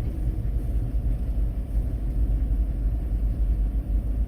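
Kia Bongo 3 camper van driving slowly, its engine and road noise a steady low rumble inside the cab.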